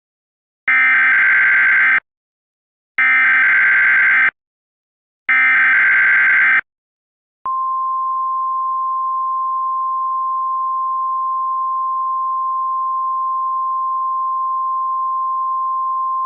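Emergency alert SAME header: three screechy digital data bursts, each just over a second long, followed by the NOAA Weather Radio 1050 Hz warning alarm tone, one steady beep held for about nine seconds. The sequence marks the start of a new warning broadcast.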